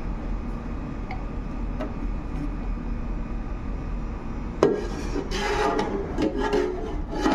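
A plastic scraper scraping thick gelato base out of a stainless steel pan into a batch freezer's hopper. There is a sharp knock about two-thirds of the way in, followed by several rubbing scrape strokes, all over a steady low hum.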